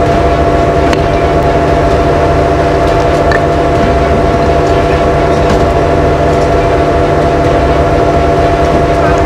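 Mini excavator's diesel engine and hydraulics running steadily: a constant low drone with several held tones over it, unchanging in level.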